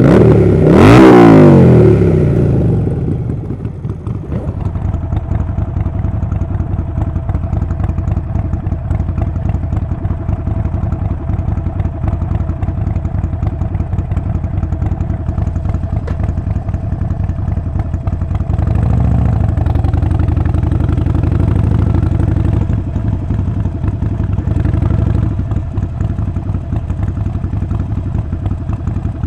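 Harley-Davidson Sportster 48's air-cooled 1200 cc V-twin revving hard just after firing up, the revs falling away within about two seconds. It then settles into a steady idle, with the throttle opened briefly a couple of times later on.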